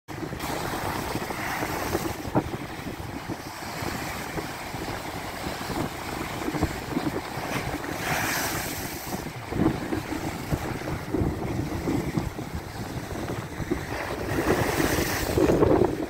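Stormy sea surf breaking against a broken concrete embankment and washing over it, with heavy wind buffeting the microphone. A wave crashes with a surge of spray about eight seconds in, and the surf swells louder again near the end.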